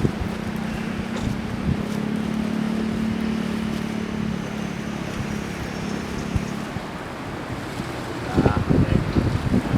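Wind rushing over the microphone, with a steady low drone of distant airliner jet engines that fades out about two-thirds of the way through. Heavier gusts buffet the microphone near the end.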